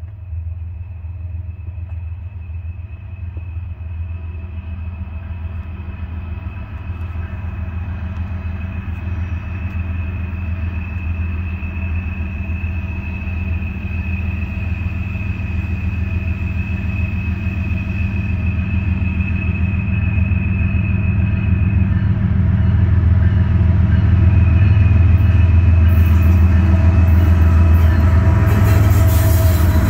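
Approaching freight train led by Norfolk Southern diesel locomotives: a steady low engine rumble that grows louder as the train nears, with a thin steady high whine above it. About four seconds before the end, sharp wheel-on-rail noise joins in as the lead locomotive draws level.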